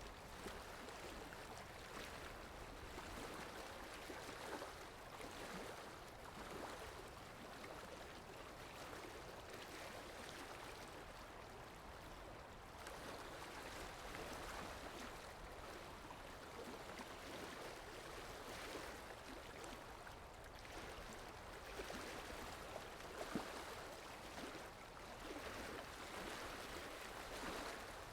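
Seawater lapping and splashing in a steady, faint rush of water noise.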